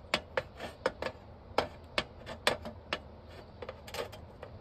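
A dozen or so sharp metal clicks and clinks at uneven spacing, some in quick pairs, as a metal stovetop coffee pot and its lid are handled.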